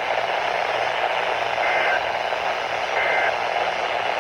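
Weather radio receiver hiss with short warbling two-tone data bursts about 1.3 s apart, two inside and a third starting just as it ends: the SAME end-of-message code that closes a NOAA Weather Radio alert.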